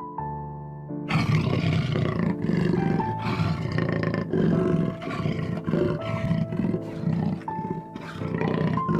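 A large animal's rough, loud vocalizing that starts about a second in and runs in uneven pulses, over background music with held notes.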